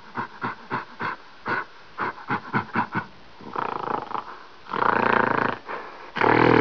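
Gorilla vocalizing: a quick run of short grunting calls, about three a second, then three longer, louder growling calls, the last and loudest starting near the end.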